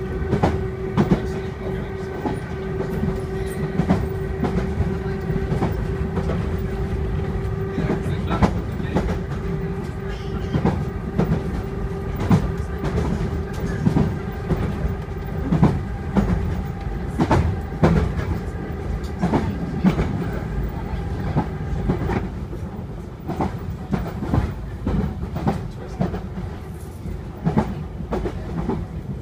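Inside a Class 483 electric unit (former 1938 London Underground tube stock) on the move: the wheels click over rail joints in an irregular clickety-clack over a steady running rumble. A steady hum runs under it through the first half and fades out about halfway through.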